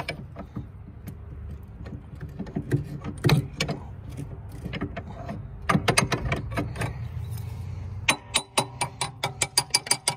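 Metal-on-metal clicking and creaking as a hand wrench is worked back and forth on a SeaStar steering-arm puller, pressing the corroded steering arm off the hydraulic steering cylinder's shaft. The clicks come irregularly, then in an even run of about five a second near the end.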